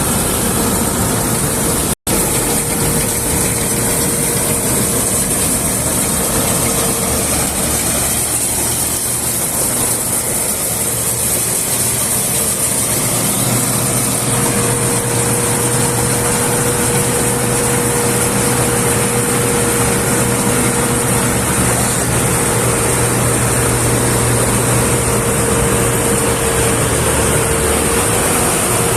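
A large farm machine's engine running steadily, with a constant whine over the engine noise. The sound cuts out for an instant about two seconds in.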